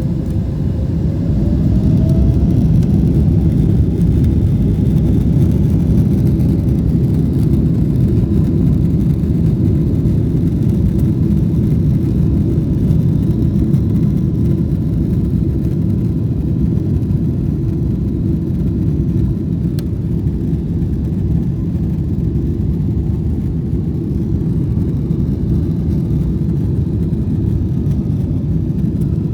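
Boeing 777-300ER with its GE90-115B engines at takeoff power on the takeoff roll: a steady, heavy rumble. A faint tone rises over the first couple of seconds as the engines spool up and the sound builds.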